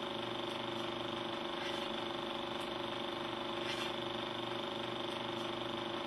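Steady mechanical hum of an old film projector, with a few faint crackles at uneven intervals.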